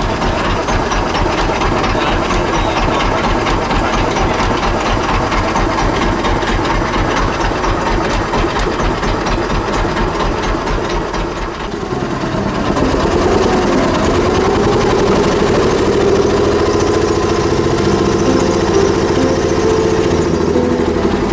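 A wooden boat's engine running with a fast, even chugging. About twelve seconds in it dips briefly, then speeds up and gets louder with a rising tone, as the boat gets under way.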